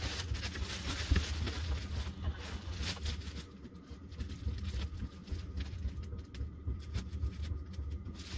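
Plastic bread bag rustling and crinkling as it is handled, busiest in the first few seconds, over a steady low rumble.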